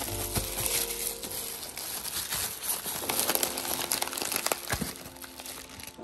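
Thin plastic packaging film crinkling and rustling as it is handled and pulled off an espresso machine's packed parts: a dense run of crackles with a few sharper ones.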